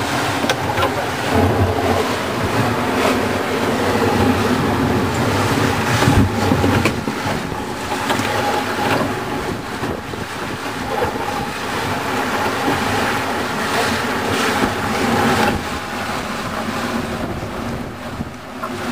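Wind and rushing water aboard a sailing trimaran driving fast through rough seas, with spray hitting the boat and a sharp slap of water about six seconds in.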